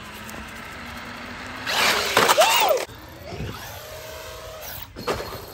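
Traxxas Maxx RC truck's electric motor whining as it is throttled up, loudest about two seconds in with the pitch rising and falling, then a steadier whine. A sharp thump near the end.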